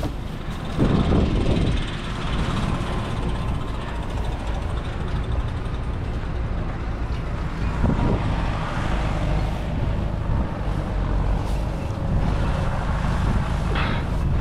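Farm tractor engine running steadily while working across a hay field, with a couple of louder bumps about a second in and again about eight seconds in.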